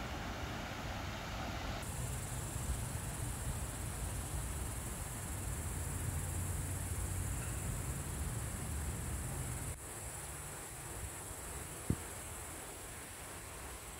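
A steady, high-pitched insect chorus over a low rumble that drops away about two-thirds of the way through, with one sharp click near the end.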